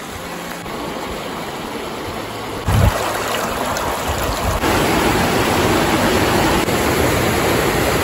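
Shallow mountain stream rushing and splashing over rocks. The water noise steps up louder twice, just under three seconds in and again past halfway, with a short low thump at the first step.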